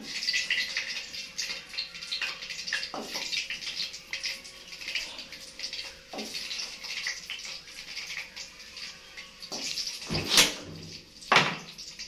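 Water running from a tap and splashing, starting suddenly, with two louder knocks a little after ten and eleven seconds in.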